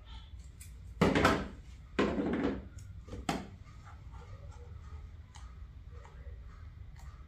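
Adhesive tape pulled off the roll in three quick rips, then faint rustles and small clicks as it is pressed over the holes in the mould.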